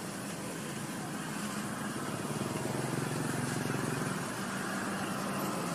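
A motor engine running steadily with a low hum, growing louder for a few seconds in the middle.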